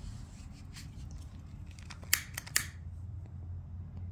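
A quick cluster of sharp clicks from small hand-held tool work a little over two seconds in, with fainter clicks before it, over a steady low hum.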